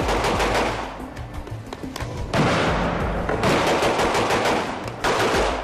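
Automatic gunfire in rapid bursts, about three long runs of quick shots, over background music.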